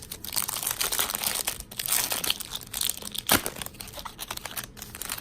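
Trading card pack wrapper crinkling as it is torn open and pulled off, with one sharper rip about three seconds in.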